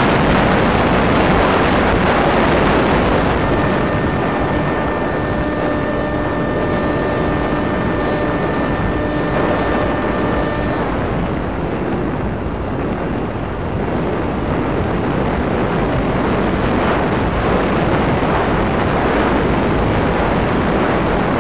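Steady rush of air and motor noise from onboard a small electric FPV model plane in flight. A steady whine of a few evenly spaced tones runs from a few seconds in until about halfway.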